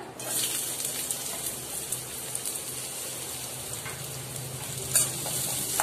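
Sliced onions sizzling in hot oil in a kadai, a steady frying hiss that starts as they drop in. There is one brief knock about five seconds in.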